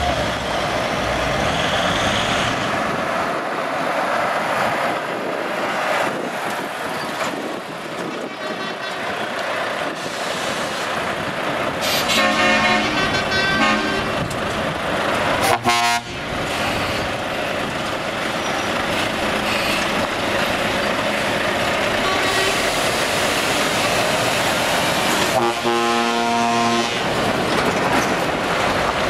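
Volvo FH trucks pulling away at low speed, their diesel engines running steadily, with truck horns sounded three times: a long blast a little before halfway, a short one just after it and another long blast near the end.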